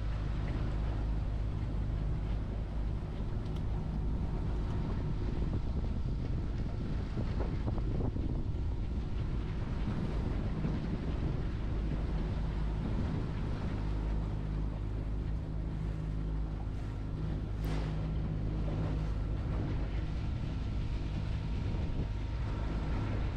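A steady low engine drone with several steady tones in it, and wind on the microphone. A short sharp noise cuts through about eighteen seconds in.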